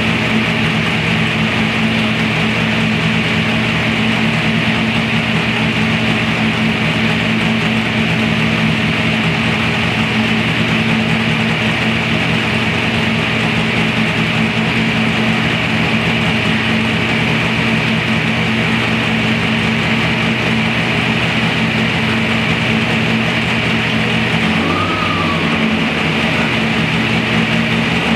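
526-cubic-inch big-block Chevy V8 racing engine running steadily at idle on an engine stand, with a slight wobble in its note near the end.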